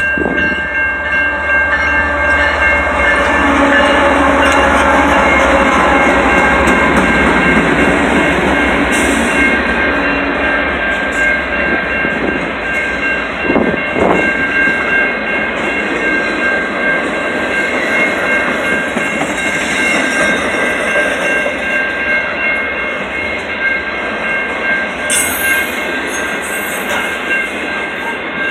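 BNSF intermodal freight train passing close by: a steady, loud rumble and clatter of the wheels over the rails as the flatcars loaded with trailers and containers roll past. Steady high ringing tones sound throughout, and there is a single sharp knock about halfway through.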